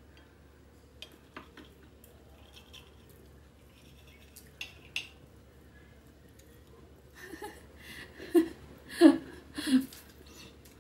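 Knife and fork clicking and scraping against a cut-glass plate while cutting an omelette, with a few light clicks and then three louder, wavering sounds in the last few seconds.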